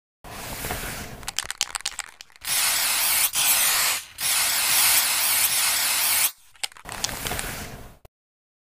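Aerosol spray-paint can sound effect: a clicking rattle, then two long hisses of spraying, about two seconds each, then more rattling that stops about eight seconds in.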